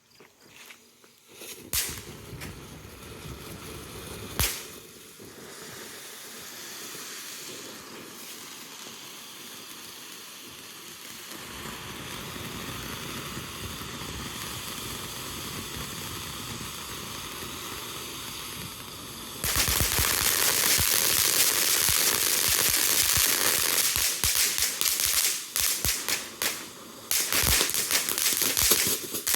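Ground fountain firework burning: two sharp pops near the start, then a steady spraying hiss that slowly grows. About twenty seconds in it turns suddenly much louder into a dense, crackling spray of pops.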